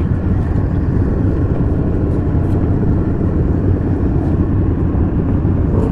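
Motorcycle on the road: a steady low rumble of engine and wind noise at riding speed.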